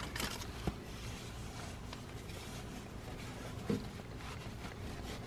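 Faint rubbing of a microfiber towel wiping degreaser off engine-bay metal and rubber, with a couple of light taps.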